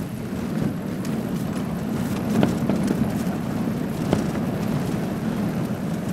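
1989 GMC Sierra pickup truck driving, with a steady low engine and road drone and a couple of sharp knocks about two and a half and four seconds in.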